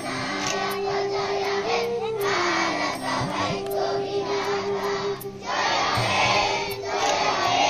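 A group of children singing together in chorus, with a held, stepping melody line under the voices.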